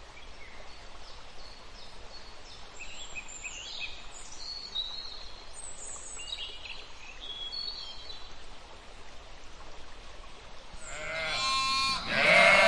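Faint high chirps over a steady hiss for the first several seconds, then near the end a loud, wavering bleat of a farm animal lasting about two seconds.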